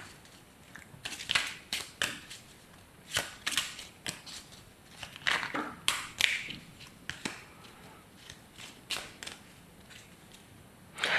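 A deck of oracle cards being shuffled and handled by hand: irregular short papery rustles and slaps, a few each second, stopping shortly before the end.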